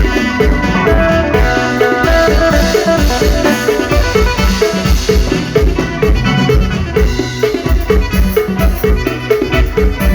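Instrumental Isan mor lam band music: a bright plucked lead repeating short quick notes over a steady drum-kit beat with a heavy kick drum.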